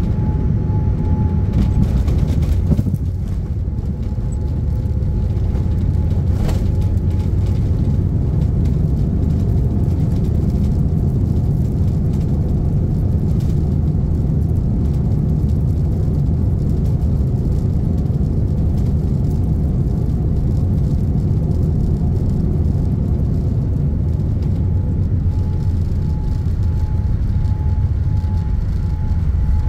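Boeing 787-10 airliner landing, heard from the cabin: a short thump about three seconds in as the main gear touches down, then a steady heavy low rumble of the wheels and airflow as the jet rolls out and slows down the runway with its spoilers up.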